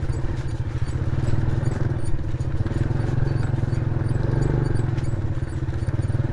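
Small motorcycle engine running steadily under way, heard close up from the rider's own bike, its note swelling slightly about four seconds in.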